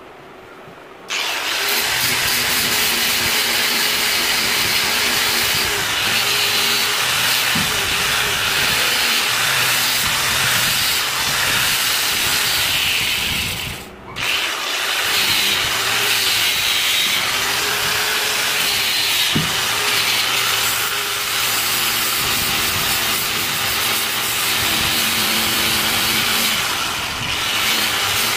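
Angle grinder with an abrasive disc on a backing pad grinding against the steel jaw of a bench vise: a steady, harsh grinding with a motor whine under it. It starts about a second in and drops out briefly about halfway through.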